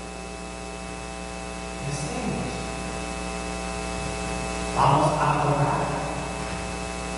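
Steady electrical mains hum with a row of buzzing overtones. Over it, a man's voice is heard in short snatches, once around two seconds in and louder about five seconds in.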